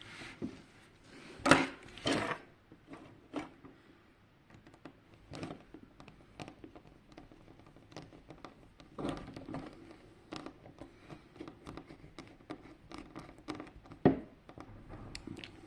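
Hands taking apart a plastic projection alarm clock: irregular clicks, knocks and light rattles of small plastic parts and tools, with louder knocks about one and a half and two seconds in and again near the end.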